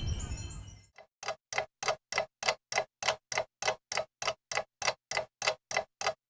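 Background music fades out in the first second. Then comes an even clock-like ticking, about three ticks a second, with dead silence between the ticks.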